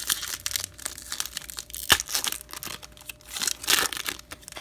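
Baseball card pack wrapper crinkling and tearing as it is handled and opened, with a sharp snap about two seconds in and a thicker burst of crinkling near the end.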